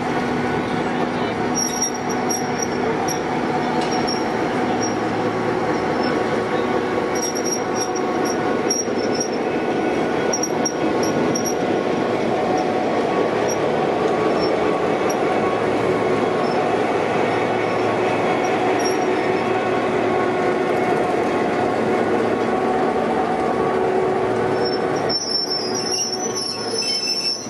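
Victorian Railways X-class diesel-electric locomotive X31 rolling slowly past at close range, its diesel engine running steadily. Brief high-pitched squeaks come and go throughout.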